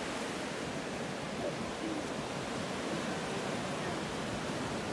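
Pacific surf washing up on a sandy beach: a steady rush of breaking waves and foaming backwash.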